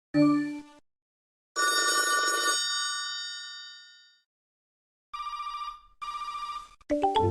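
A run of MSN Messenger alert sounds: a brief chime, then a bell-like tone that fades over about two seconds, then two short trilling rings like a telephone, and a quick run of notes near the end.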